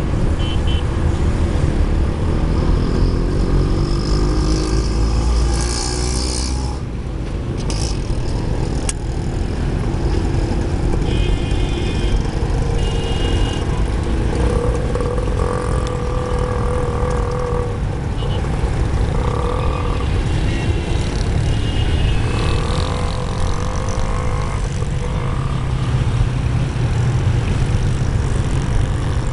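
Steady low rumble of a Boeing 777-300ER's twin GE90 jet engines, heard from a distance as the airliner rolls out along the runway after touchdown, with wavering higher tones coming and going over it.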